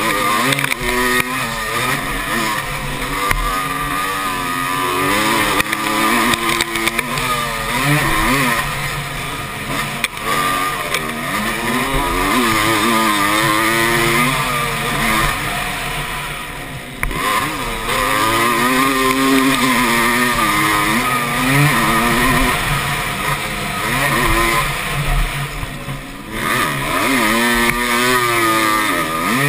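Dirt bike engine ridden hard on a motocross track, its pitch rising and falling as the rider opens and closes the throttle through the gears, heard from a camera mounted on the bike. The throttle briefly shuts off about halfway through and again near the end.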